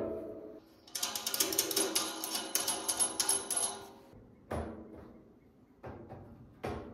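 Metal parts being handled: a dense run of rapid metallic clicking and rattling for about three seconds, then a few separate sharp metal knocks.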